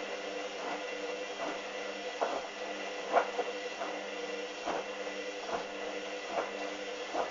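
Hoover Dynamic washing machine turning its drum during a rinse: a steady motor hum with an irregular knock every second or so as the single item of jeans tumbles. The motor stops right at the end.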